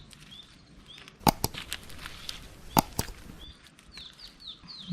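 Four sharp knocks in two pairs, about a second and a half apart, over small birds chirping: short, high, falling calls that repeat.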